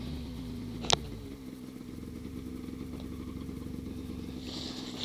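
Snowmobile engine running at a steady, even pitch, with a sharp click about a second in.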